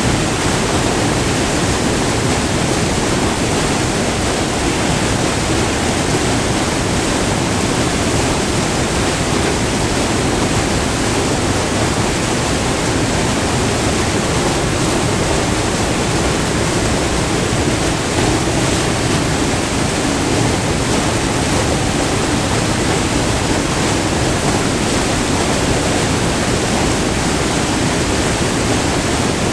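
White water of a short multi-tiered waterfall rushing steadily over rock, a loud, even roar without a break.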